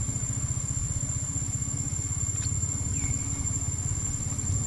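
Outdoor background noise: a steady low rumble under a constant thin high-pitched whine, with a faint click and a faint short chirp near the middle.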